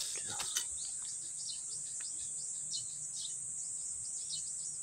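Outdoor ambience: a steady high-pitched insect buzz, with short falling bird chirps repeated many times over it. A few faint clicks come right at the start.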